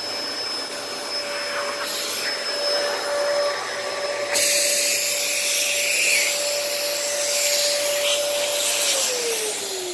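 Dyson DC14 upright vacuum running with a steady motor whine over a rush of air. About four seconds in the rushing suddenly gets louder and brighter. Near the end the whine falls in pitch as the motor winds down.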